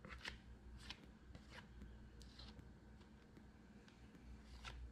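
Near silence: a low room hum with a few faint soft rustles and ticks as fingers handle a glue-coated deer ear skin.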